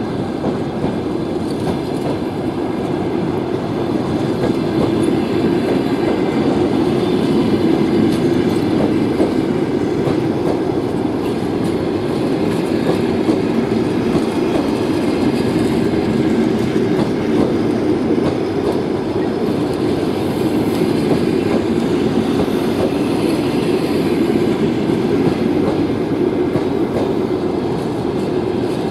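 Passenger coaches of an arriving train rolling past a station platform: steady rumble of steel wheels on the rails, with a clickety-clack of wheels over the rail joints.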